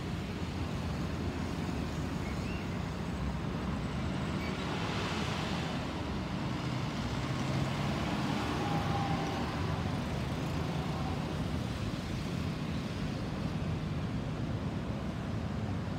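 Distant jet airliner, an Airbus A320 with CFM56 turbofans, passing overhead: a steady low rumble that swells a little about halfway through.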